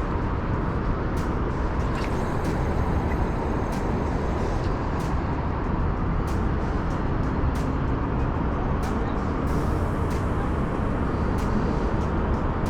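Steady rumble of interstate traffic crossing the bridge overhead, with scattered short clicks through it.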